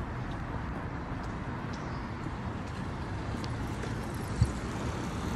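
Road traffic on a city street: a steady, noisy rumble of cars, with a single knock about four seconds in.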